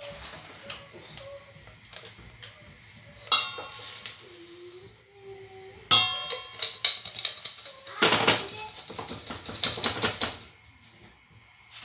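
A saucepan, mesh sieve and steel bowl clattering as hot salt and freshly puffed rice are poured from the pan into the sieve and shaken, separating the puffed rice from the salt it was puffed in. There are sharp metal knocks with ringing, and a dense rattle of grains in the shaken sieve about eight seconds in.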